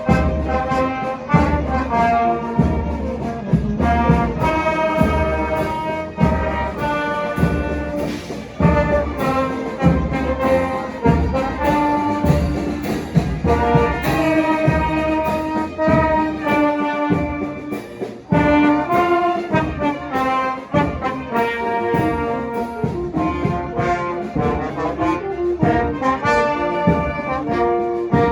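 Brass orchestra of trombones and trumpets playing a tune over a steady drum beat.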